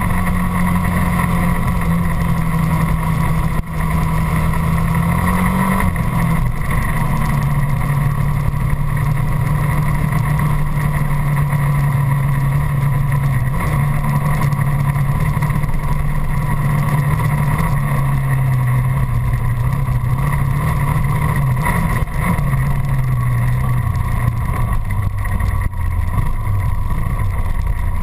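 Dirt bike engine running steadily, heard close up from the handlebars, its pitch stepping down a few times during the ride.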